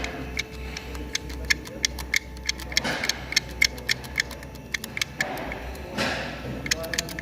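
BMW N57 straight-six diesel engine running with a low hum under a rapid, irregular sharp ticking rattle of several clicks a second, with short rushes of noise about three and six seconds in. The rattle is taken for timing chain rattle, the sign of a worn, stretched chain.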